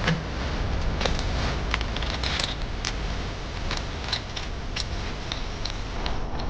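Irregular light clicks and taps, a dozen or so, over a steady low rumble.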